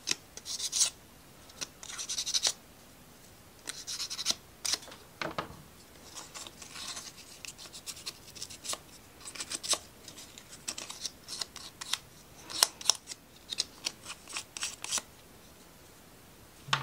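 Short strokes of sandpaper rubbing on a small laser-cut wooden model part, in several quick bursts, among many sharp clicks of wooden pieces being handled and tapped.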